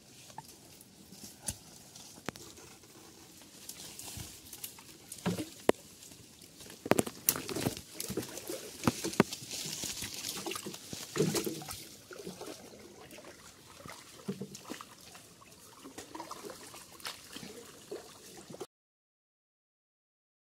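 Creek water gurgling and splashing around a wooden dugout boat as it is pushed along with a bamboo pole, with scattered sharp knocks. The sound cuts out completely about two seconds before the end.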